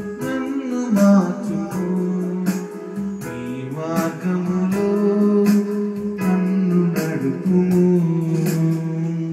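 Electronic keyboard accompaniment with a steady strummed-guitar style rhythm under long held melody notes that step between pitches.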